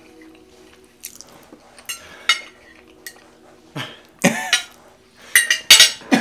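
Fork and knife clinking and scraping on a ceramic dinner plate while eating, several sharp clicks spread through the first half. A few louder sounds come near the end, among them a short voice sound.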